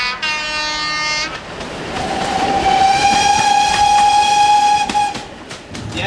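Train horn sounding: a short note, then after a brief gap a long steady lower note held for about three seconds, over the rising rumble of the approaching train on the rails.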